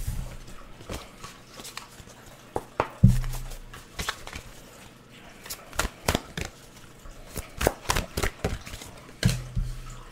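Tarot cards being shuffled and handled: a string of quick card flicks and snaps, with a few dull thumps on the table.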